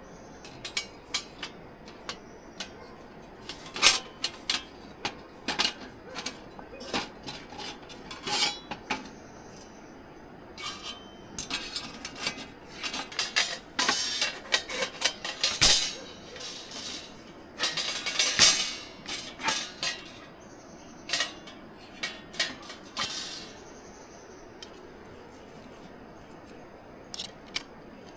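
Camp gear being handled: an irregular run of clinks, clatters and knocks, with the busiest stretch in the middle.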